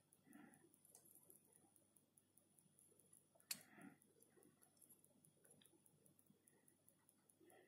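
Near silence: faint room tone, with one short click about three and a half seconds in.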